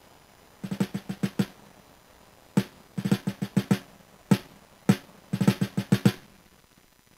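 Drum-led music played back as an 8-bit, 8 kHz wav through an ESP32's built-in DAC, taken unfiltered from its GPIO25 pin. Groups of quick drum hits come in bursts with short pauses between them, then a lull of about a second near the end.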